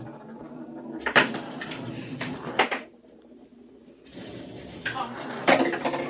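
Foosball game in play: sharp knocks as the ball is struck by the plastic players and hits the table's sides, several times, with a short lull about halfway through.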